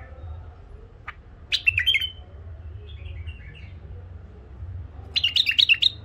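White-eared bulbul singing: a short burst of quick, clear warbled notes about one and a half seconds in, a softer phrase around three seconds, and a longer burst near the end, over a steady low hum.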